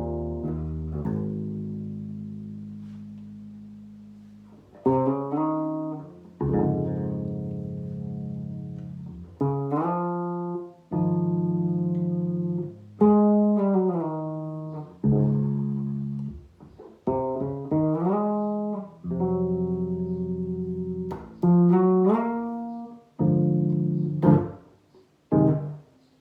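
Solo bass guitar playing a slow jazz arrangement: plucked chords and single notes, each left to ring and fade, with several notes sliding in pitch.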